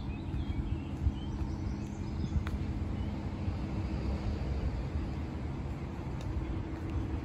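Outdoor walking ambience: a fluttering low rumble of wind on the microphone over a steady low hum, with a few bird chirps in the first second or so.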